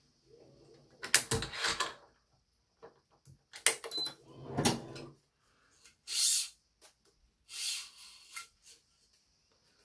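Hand work on a badminton racket being restrung with BG80 string: a few separate knocks and clacks, the loudest about a second in, then two short hissing swishes past the middle.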